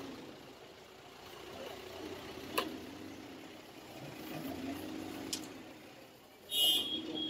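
Large knife chopping through bhetki (barramundi) on a wooden log chopping block: three sharp knocks about two and a half seconds apart, over a low, wavering engine-like hum. Near the end comes a louder sharp sound followed by a high ringing tone.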